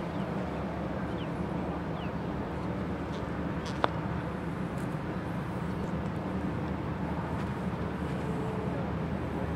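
Grace putter face striking a golf ball once, a single sharp click about four seconds in, over a steady low background rumble.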